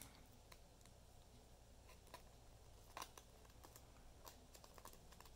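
Near silence: room tone with a low steady hum and a few faint scattered ticks from trading cards being handled and slid into plastic card sleeves.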